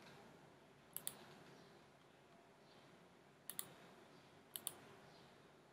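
Computer mouse button clicks: three pairs of quick, sharp clicks spaced a second or more apart, over faint hiss.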